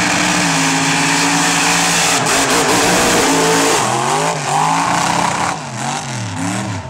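Modified mud-bog truck engine running hard at high revs, then revving up and down several times as the truck churns through the mud pit.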